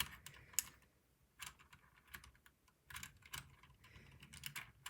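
Irregular plastic clicks and taps from a Ducky mechanical keyboard as new keycaps are pressed onto the switches and pushed down to seat them.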